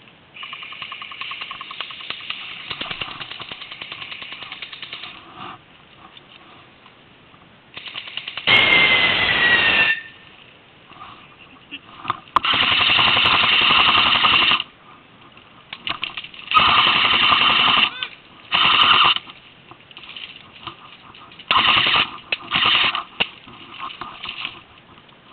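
Airsoft rifle firing on full auto: a fast mechanical rattle in about half a dozen bursts of up to two seconds each, loudest from about eight seconds in.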